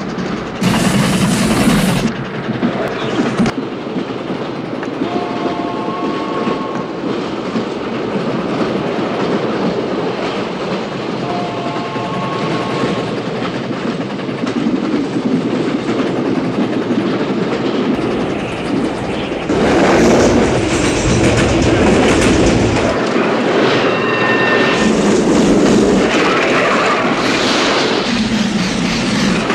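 Railway train running fast, with a steady clatter of wheels on rails and a rushing noise. A chord-toned train whistle sounds twice, about six seconds apart, and the rush grows louder in the last third.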